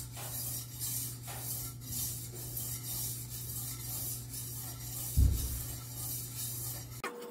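A wet Chosera 600 water stone on a guided sharpener's arm being swept in repeated rasping strokes along the steel edge of a fish cleaver, about two strokes a second, with a low hum behind and one dull thump about five seconds in.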